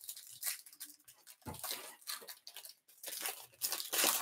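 The plastic wrapper on a pack of basketball trading cards being torn open and crinkled by hand, in a run of short, irregular crinkling bursts. The loudest burst comes near the end.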